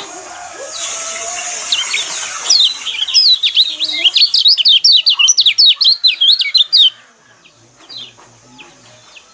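White-eye birdsong played as a provocation track to rouse caged white-eyes: a harsh rasping burst, then a loud, rapid run of sharp, high chirps at about five a second for several seconds, which stops suddenly and leaves faint calls.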